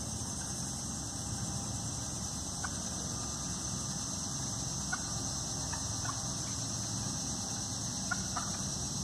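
Turkeys roosting in the trees, giving about six short, scattered clucks, two of them close together near the end, over a steady high-pitched hiss.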